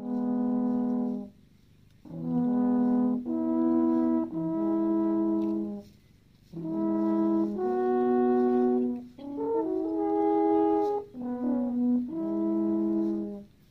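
Swiss alphorns playing a slow melody of long held notes in phrases, with short pauses between the phrases.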